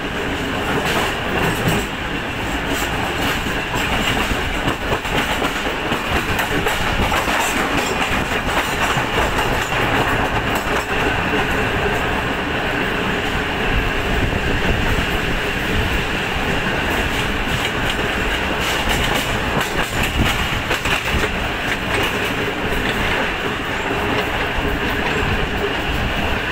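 Pakistan Railways Green Line passenger coaches running at speed, heard close from an open door: a steady rumble and rattle of steel wheels on the rails with frequent clicks over the rail joints.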